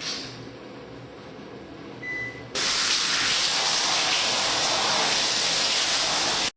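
Steady hiss of spraying water that starts suddenly about two and a half seconds in and cuts off abruptly near the end.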